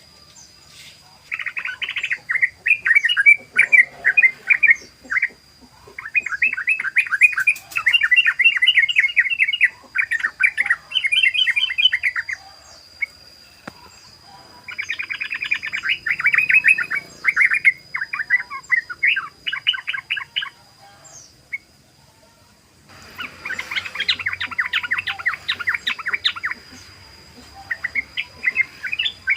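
Yellow-vented bulbul (trucukan) singing in rapid-fire 'ropel' bouts: fast, dense chattering phrases, each lasting a few seconds, repeated six times with short pauses between. A faint steady high whine runs underneath.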